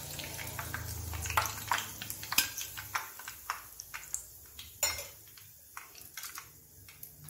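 Hot oil crackling and popping in a kadhai where potatoes have just been fried, with a metal slotted spoon clinking against the pan as the potatoes are lifted out. The pops are dense at first and thin out after about three seconds.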